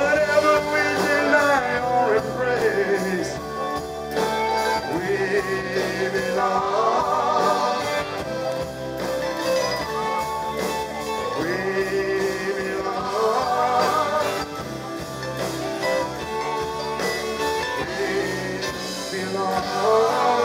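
A live band playing a song, with a singer over the instruments.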